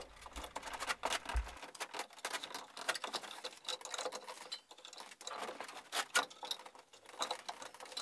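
Sheathed electrical cable being fed by hand through electrical boxes in open wall framing: irregular light scraping, rustling and small clicks.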